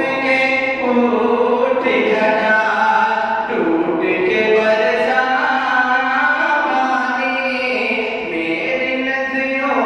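A solo man singing a naat, an Urdu devotional poem in praise of the Prophet, without instruments, in long drawn-out notes that slide slowly in pitch.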